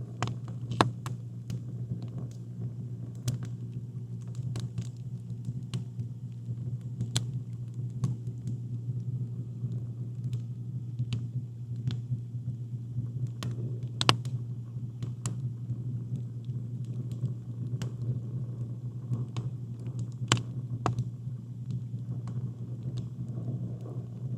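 Wood campfire crackling, with irregular sharp pops and snaps over a steady low rumble. The loudest pops come about a second in, in the middle, and about two thirds of the way through.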